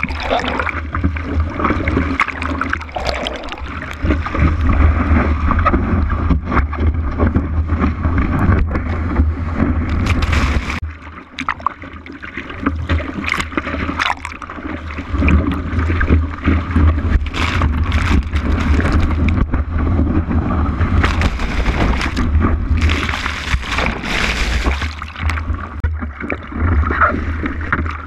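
Seawater sloshing and splashing close against an action camera on a surfboard as a surfer paddles, his arm strokes slapping the water, over a constant low rumble of water and wind on the microphone. A stretch of louder rushing hiss comes a little after twenty seconds in.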